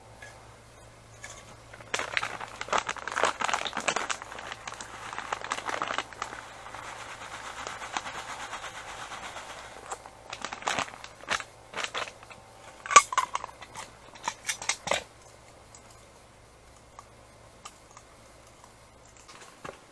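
Crinkling and rustling of a paper-and-plastic bait packet being handled and tipped out, with a steadier rustle in the middle, then scattered sharp crackles and clicks.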